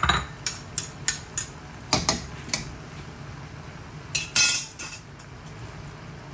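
A metal spatula and fork clinking and scraping against a wok while tossing stir-fried noodles: a quick series of sharp clinks over the first two and a half seconds, then a louder clatter of metal on metal about four seconds in, over a steady low hiss.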